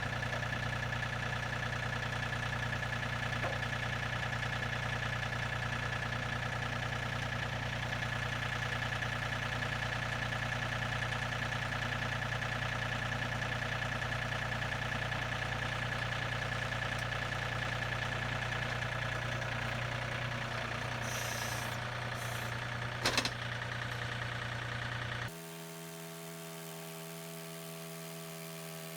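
An engine running steadily at constant speed, with a single sharp knock about 23 seconds in. About 25 seconds in it cuts off abruptly to a quieter, different steady machine whine made of several even tones.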